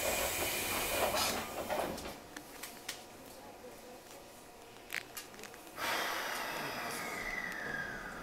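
Cabin of a Nishitetsu 8000-series train standing at the platform, with muffled voices for the first two seconds and a click about five seconds in. Just before six seconds a sudden hiss of air starts and slowly fades, with a tone under it that falls steadily in pitch.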